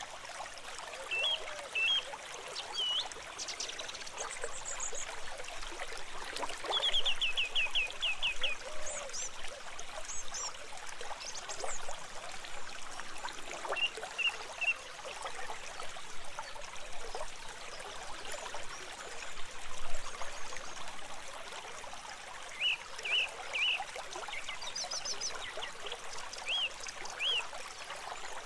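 A stream flowing and trickling steadily, with small birds calling over it: scattered short chirps, a quick trill of repeated notes about seven seconds in, and a few thin high notes.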